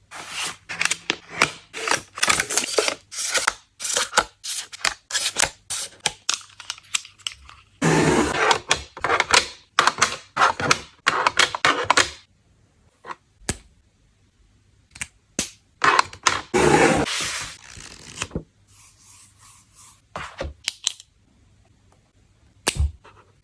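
Hands handling a phone screen protector and its plastic packaging: a quick run of clicks and taps, then two longer stretches of rustling, scraping noise, and a single sharp click near the end.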